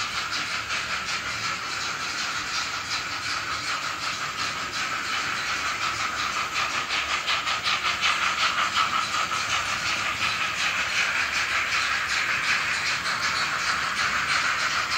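Sound decoder of an Arnold N-scale model of the class 41 steam locomotive, playing an even, quick chuffing with steam hiss through its small loudspeaker, a little louder in the middle.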